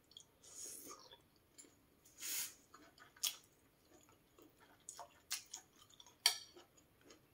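Close-up eating sounds: a person chewing mouthfuls of meat from a bowl of boat noodle soup, with scattered sharp clicks of a spoon and chopsticks against the bowl.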